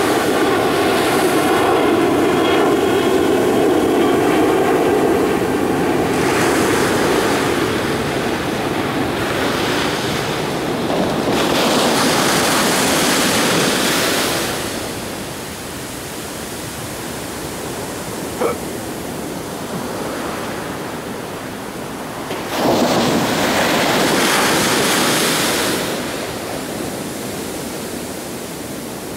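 Ocean surf breaking and washing up the shore in surges, with two big swells of rushing water, one about a third of the way in and one about three quarters of the way in. An airplane's engine whine fades away over the first few seconds, and there is one brief sharp chirp around the middle.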